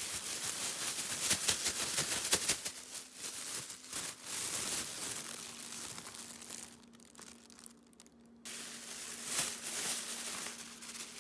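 Crinkling, crackling handling noise with many small sharp clicks, broken by brief pauses in the second half, over a faint steady hum.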